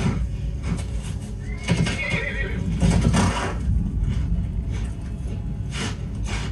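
A horse neighs about two seconds in, among several hoof thuds and stamps, played back from a film soundtrack through a loudspeaker.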